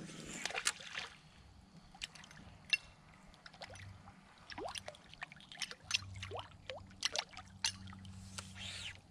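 Musky flaptail topwater lure retrieved across calm water: its metal tail blade flaps and slaps at the surface, making an uneven run of small plops, gurgles and sharp clicking ticks.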